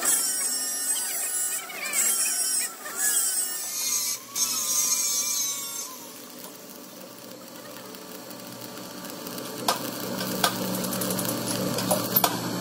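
Stick-welding arc crackling and frying as a weld bead is laid along a worn steel excavator bucket pin to build up its surface and restore its size. Louder in the first half, with a steady low hum and a few sharp clicks in the last few seconds.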